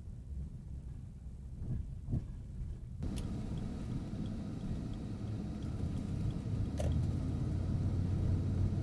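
Low engine and road rumble inside the cab of a truck towing a trailer on the move. About three seconds in, the road noise turns suddenly louder and brighter, with a couple of faint clicks.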